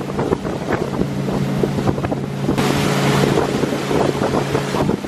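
Motorboat engine running steadily at speed while towing a tube, under wind buffeting the microphone and the rush of the wake; a louder rush of hiss comes about halfway through.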